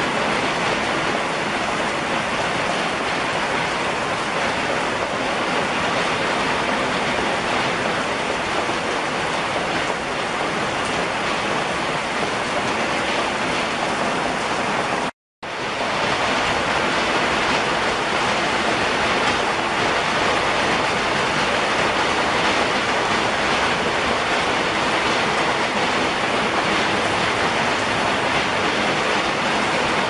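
Rain falling steadily on trees and a wooden deck, an even hiss that does not change. It cuts out suddenly for a fraction of a second about halfway through.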